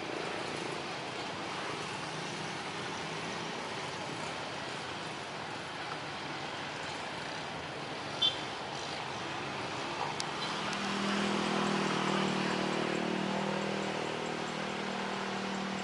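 Jet airliner taking off: a steady, even roar of its engines. A single sharp click comes about eight seconds in, and from about ten seconds a lower, steady engine hum of a road vehicle swells in over it.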